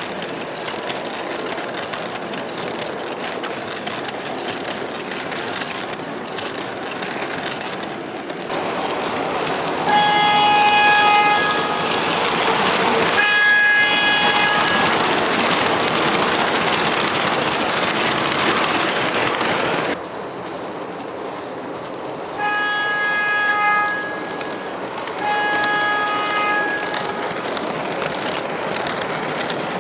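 MTH R40 subway model train running, its onboard sound system playing steady subway car running and track noise. Four horn blasts sound in two pairs, the first pair about a third of the way in and the second about three quarters of the way through.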